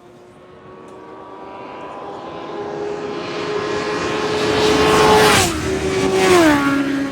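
Racing motorcycles on the TT road course approaching at high speed with a steady engine note that builds in loudness, then passing by: the pitch drops sharply twice, about a second apart, as two bikes go past.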